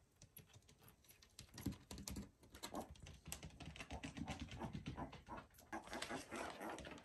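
Piglets' small hooves clicking and tapping quickly on a bare wooden floor as they trot about, getting busier about a second and a half in, mixed with soft piglet grunts.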